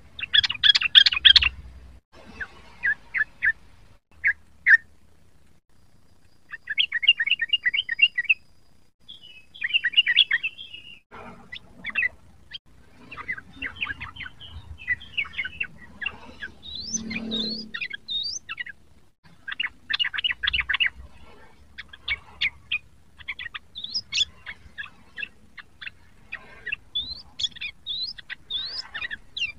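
Yellow-vented bulbul (trucukan) singing: quick bursts of rapid, bubbly chirping notes, phrase after phrase with short pauses between them.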